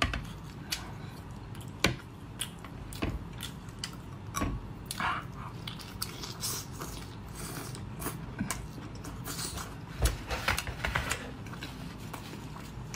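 A person biting and chewing lobster coated in chili oil, with many irregular wet clicks and smacks; a few louder smacks stand out about 2, 4.5 and 10 seconds in.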